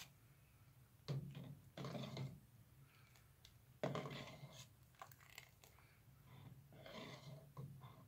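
Metal spoon scraping and knocking against the inside of a stainless steel pot while stirring flour soup. There are about five short, irregular scrapes with quiet stirring between them.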